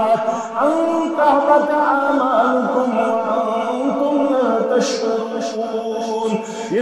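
A man's voice chanting a sermon in a drawn-out melodic style, holding long notes that slide slowly in pitch, with heavy added echo.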